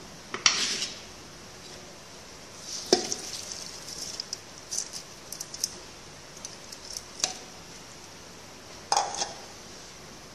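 A metal bowl clinking and scraping against a pressure cooker as soaked urad dal is tipped in: a few sharp clinks about half a second, three, seven and nine seconds in, with small scattered ticks between.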